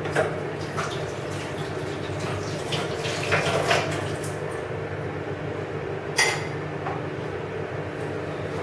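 Microwave oven running with a steady hum while heating tea, with a few short clinks and knocks scattered through, the loudest about six seconds in.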